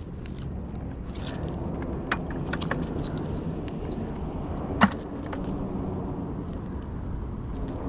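Scattered light clicks and clinks of scrap metal on a magnet-fishing magnet being handled, with one sharp knock about five seconds in, over a steady low rumble.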